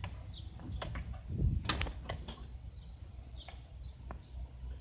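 Railway passenger coach rolling slowly past, its wheels giving irregular knocks and clicks over the rail joints and the crossing, over a low rumble.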